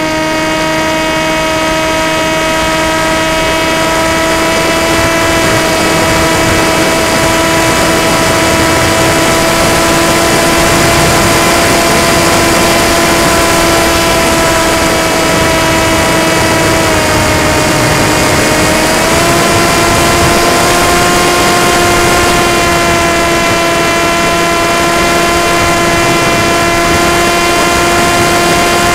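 Electric motor and propeller of an FPV model aircraft, heard from its onboard camera as a loud, steady whine over wind rush. The pitch sags slightly about two-thirds of the way through as the throttle eases, then climbs back.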